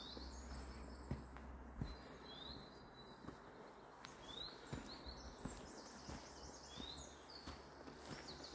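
Songbirds calling: many short high chirps and rising sweeps, several birds at once. Soft footsteps of a walker underneath.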